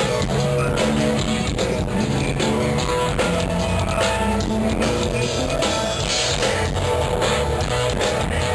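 Rock music with strummed guitar and a drum kit keeping a steady beat.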